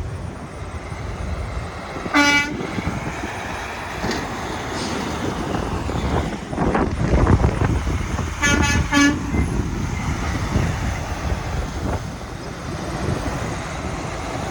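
Semi truck horn: one short blast about two seconds in, then three quick toots in a row about eight and a half seconds in, over the low rumble of diesel truck engines.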